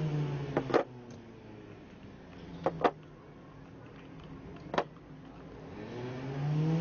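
Sharp clicks of hard cast orgonite pieces, resin with metal shavings, being popped from a silicone mould and set down: a quick pair about a second in, another pair nearly three seconds in and a single click near five seconds. A passing motor vehicle's engine hum fades at the start and builds again near the end.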